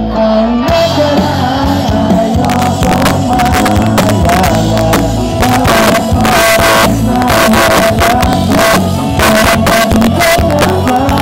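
Live pop-rock band playing with electric guitar, bass, drums and violins; the drums come in about half a second in under a long held note.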